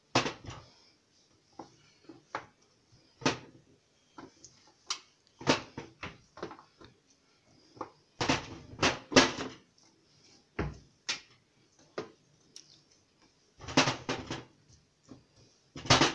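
Irregular light taps and clicks as bell pepper rings and tomato slices are laid onto a perforated metal baking tray, with short quiet gaps between them.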